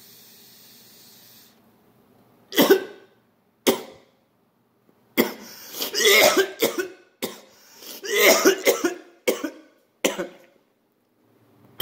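A man coughs hard after a hit from a glass pipe of cannabis wax: two single coughs, then two long fits of rapid coughing, then a couple more. A soft steady hiss at the start, while the pipe is lit and drawn on, comes before the coughing.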